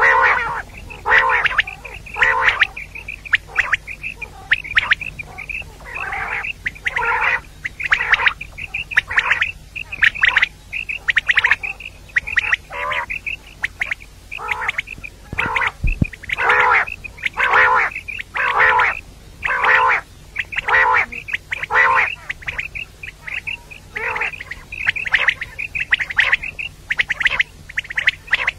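Female common quail calling over and over, short rough calls about once or twice a second with quieter high chirps between them.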